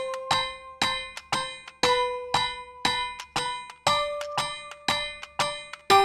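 Background music with a steady beat of bright, ringing strikes about twice a second; its held notes change pitch every two seconds or so.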